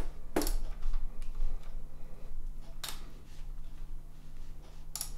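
Three sharp computer mouse clicks, spaced a couple of seconds apart, over a faint steady electrical hum.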